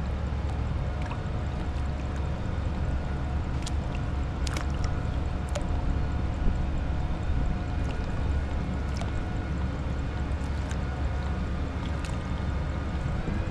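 A small motor humming steadily, with a few faint steady tones above it, under water gurgling and a few light clicks.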